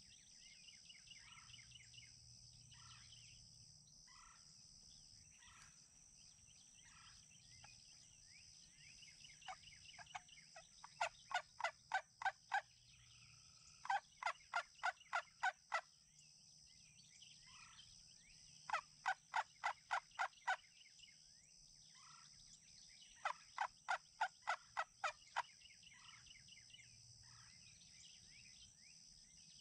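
Wild turkey yelping: four runs of six to eight evenly spaced yelps, about three a second, the first starting about a third of the way in, with fainter single calls and small bird chirps before them.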